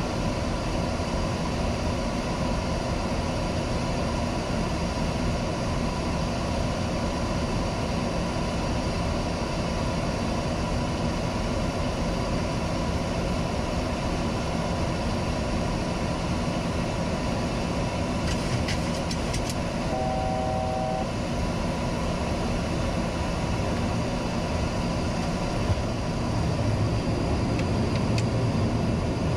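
Steady flight-deck noise of a Boeing 737-800 on approach. A few quick clicks come about two-thirds through, followed by a short two-note beep, and a deeper rumble swells near the end.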